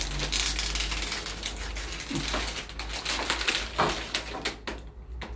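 Plastic accordion door panels clicking and crackling as they are handled and fitted together. The crackling eases off about four and a half seconds in.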